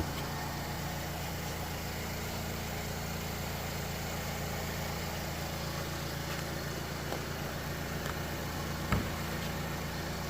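Steady, even machine hum from a running motor, with one short knock about nine seconds in.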